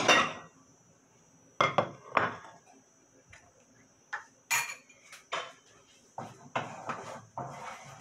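Ceramic dish clinking and knocking as a large plate is set down on a stone countertop: a series of sharp knocks, the loudest at the very start. Near the end a utensil scrapes and taps in a frying pan as eggs are stirred.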